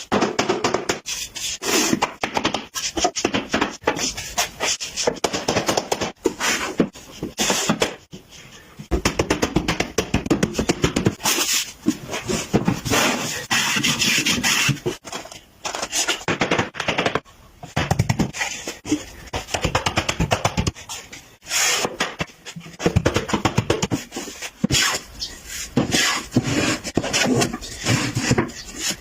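Hand tools working wood: a busy run of irregular scraping and knocking strokes, with short pauses between bursts.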